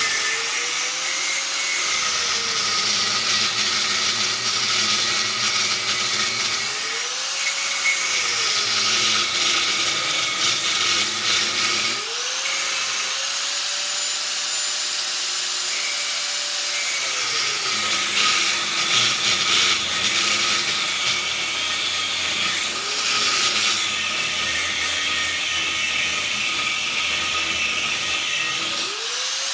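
Corded angle grinder cutting through the weld on a transformer's steel lamination stack, a grinding screech over the motor's whine. The whine sags in pitch each time the disc is pressed into the cut and climbs back when it is eased off, several times over.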